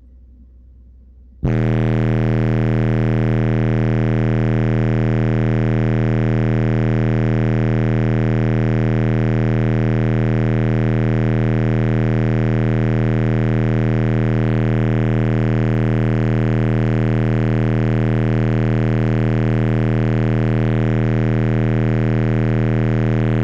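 Three 15-inch Slapz Audio Oblivion subwoofers on a Shock 8k amplifier at 0.67 ohm play a single steady, loud bass test tone at full power. It starts suddenly about a second and a half in and holds unchanged, a torture test of the subs and amp.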